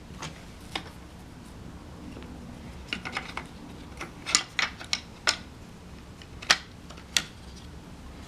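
Scattered sharp clicks and light knocks of a tactical flashlight being handled and fitted into a clamp-on flashlight mount on a rifle, with a quick run of clicks about three to five seconds in.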